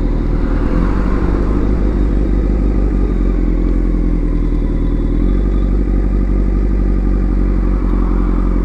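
Kawasaki Z900's inline-four engine running steadily as the bike rolls slowly in traffic, heard from the rider's helmet. Its note changes slightly about five seconds in.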